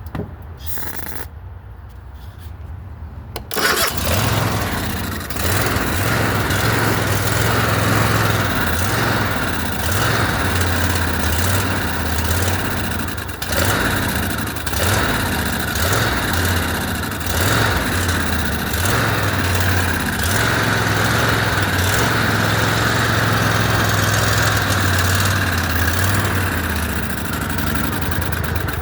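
Kohler Courage 25 twin-cylinder engine on a riding mower being cranked, catching about three and a half seconds in, then running unevenly with repeated dips and surges. It is starving for fuel, which the owner puts down to a bad carburetor or fuel pump.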